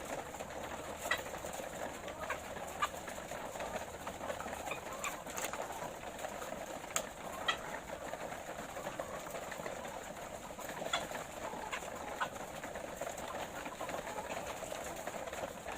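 A flock of laying hens murmuring and clucking continuously, with scattered sharp clicks and taps among them.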